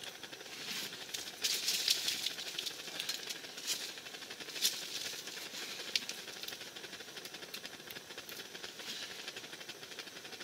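Crackling rustle with scattered sharp clicks from hands working at an ice-fishing hole, heaviest from about one to five seconds in, then settling to a faint hiss.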